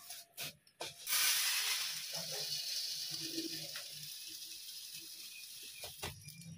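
A few clicks as the outlet lever of a metal grain bin is worked, then, about a second in, a stream of grain pouring from the chute into a steel bowl: a steady hiss that slowly fades as the flow eases.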